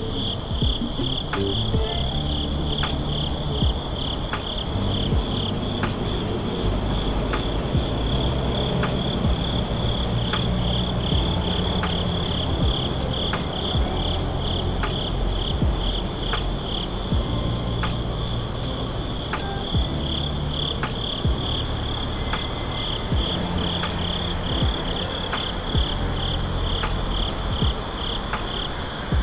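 Crickets chirping in a steady chorus of quick, evenly repeated high pulses, over a low background rumble.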